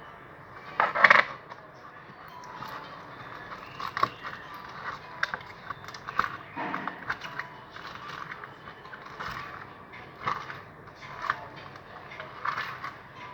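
Sticky homemade slime being worked by hand, with irregular wet clicks and crackles and a louder burst about a second in. The slime is still sticky and clings to the hands.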